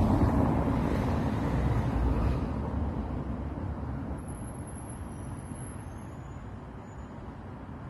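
A passing road vehicle, loudest at the start and fading steadily away over several seconds.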